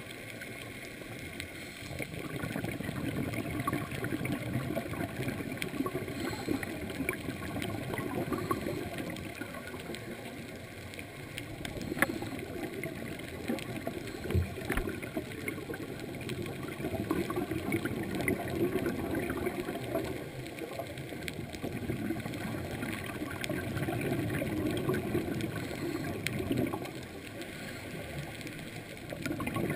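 Muffled underwater wash and gurgling, heard through a camera's waterproof housing, swelling and easing every several seconds. A couple of sharp knocks come near the middle.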